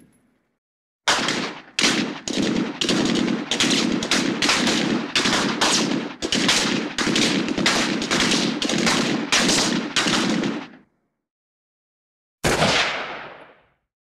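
Machine gun firing a long string of short bursts, about two a second, for nearly ten seconds. After a pause, one more shot fades away over about a second and a half.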